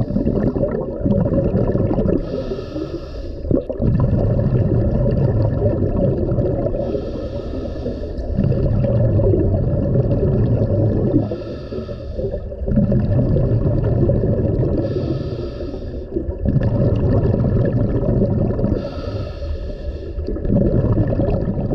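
Underwater recording of a diver's breathing: a hiss on each inhale alternating with longer bubbling, rumbling exhales, about one breath every four seconds.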